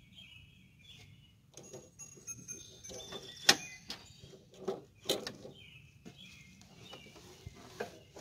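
A series of sharp clicks and knocks from metal parts being handled on a riding mower's cutting deck, the loudest about three and a half seconds in. Birds chirp at the start and again near the end.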